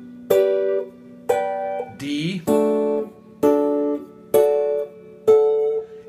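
Solid-body electric guitar with a clean tone playing triad chord shapes, G and then D, at different places on the neck. Six short chords about a second apart, each damped after about half a second.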